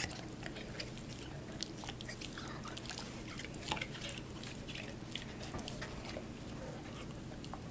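A pet chewing and biting on something it has got hold of, making irregular small crunching clicks.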